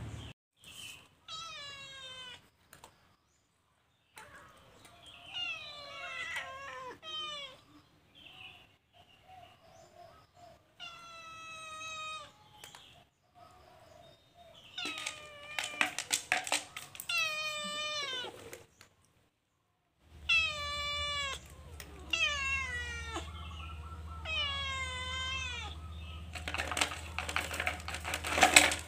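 A cat meowing over and over, about a dozen calls, each falling in pitch. A quick run of clicks and clatter comes near the end.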